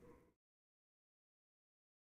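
Near silence: the last faint room noise fades out in the first half second, then digital silence.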